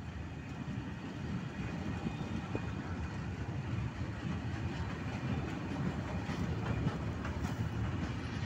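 Freight train of covered sliding-wall wagons rolling past close by: a steady rumble and clatter of wagon wheels on the rails, growing slightly louder.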